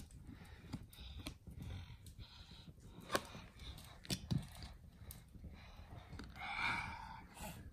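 Scattered soft clicks and taps of Play-Doh and a small plastic toy car being pressed and handled on a plastic box lid, with a brief louder rustle near the end.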